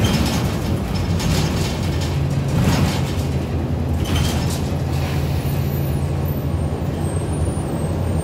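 City transit bus driving, heard from inside the passenger cabin: a steady low engine and drivetrain drone, with a few brief rattles from the body.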